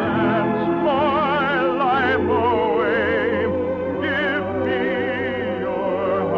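Operatic-style singing with strong vibrato over an orchestra, a few long notes in a romantic musical-theatre number.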